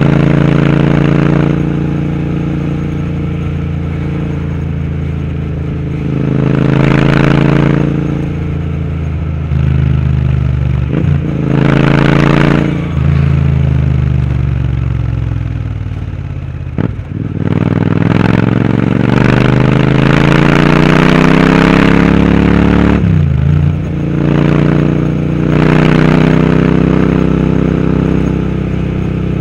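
Royal Enfield Interceptor 650's parallel-twin engine on a Powerage aftermarket exhaust, ridden on the road. The exhaust note rises as the throttle opens and falls as it eases off. A few brief breaks in the note, each followed by a fresh climb, are typical of gear changes.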